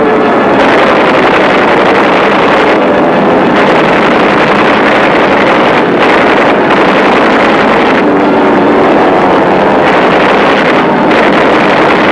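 Loud, steady drone of piston aircraft engines, its pitch shifting slightly near the end.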